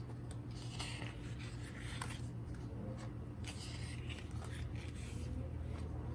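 Soft rustling and rubbing of paper as the pages and photo inserts of a photobook are handled, in a few brief scrapes with faint clicks, over a steady low hum.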